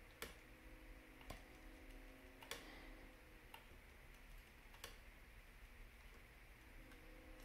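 Near silence with about five faint, sharp ticks spread over several seconds from a wooden scissor-lift desk mechanism being pressed down hard by hand, its 3D-printed nut part under load. A faint steady hum lies underneath.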